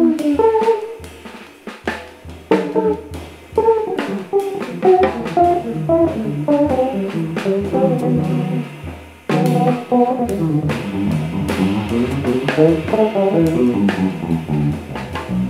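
Extended-range electric bass taking a solo, with runs of quick melodic notes in its upper register over a drum kit groove. The line thins out briefly about nine seconds in, then comes back in with a strong hit.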